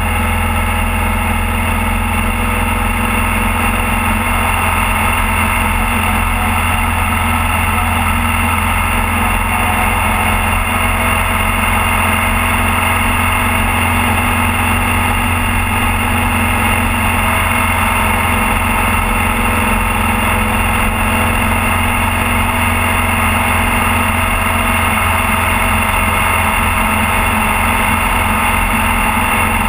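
Motorcycle engine running steadily at a constant cruising speed, a continuous even drone with road noise and no change in speed or gear.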